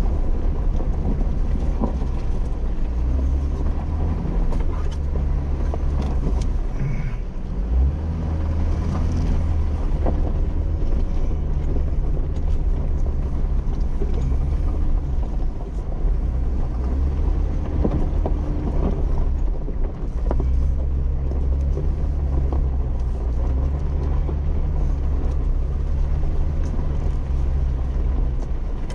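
Jeep engine and drivetrain running at low speed on a rough dirt trail, a steady low rumble that swells and eases with the throttle, with occasional knocks as it rides over bumps, heard from inside the cab.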